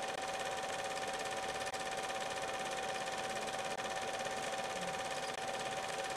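Film projector running steadily: a continuous mechanical whirr with a constant whine through it.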